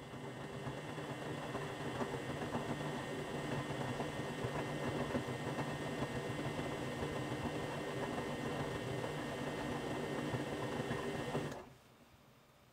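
Front-loading washing machine drum tumbling a wet, sudsy wash load: a steady motor hum under the churn of wet laundry. It stops abruptly about eleven and a half seconds in as the drum pauses between turns.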